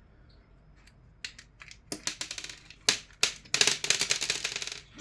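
Fan parts clicking and rattling as they are handled and pulled apart: a few sharp clicks after about a second, then a dense run of rattling clicks near the end.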